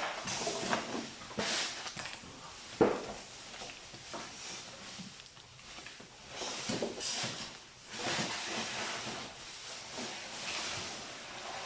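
Irregular handling noise as a refrigerator is moved by hand: scattered knocks and bumps, one sharper knock about three seconds in, with rustling and a faint hiss between them.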